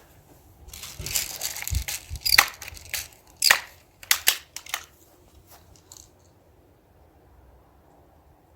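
Daisy 760 Pumpmaster air rifle being pumped and readied: a rustling stretch, two sharp clacks about a second apart, then a few lighter clicks before it falls quiet.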